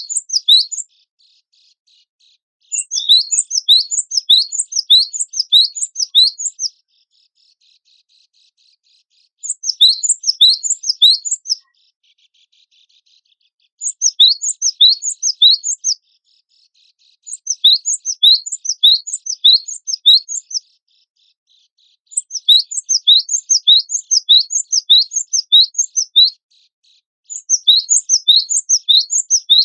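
Gelatik batu (cinereous tit) singing in repeated phrases of quick, high, sharply falling notes. Each burst lasts a few seconds, with short pauses between.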